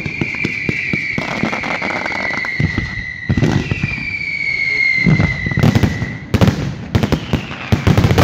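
Fireworks going off: a dense crackle of firecracker bangs with two long whistles that slowly fall in pitch, and heavier bangs about five seconds in and near the end.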